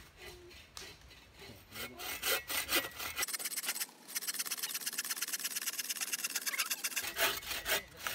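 A small hand saw cutting through a wooden branch, with rapid back-and-forth scraping strokes that start about two seconds in and then keep an even pace, cutting out a knot in the wood.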